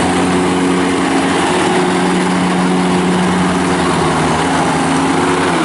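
John Deere X758 garden tractor's Yanmar three-cylinder diesel running steadily at an even pitch as the tractor drives across grass.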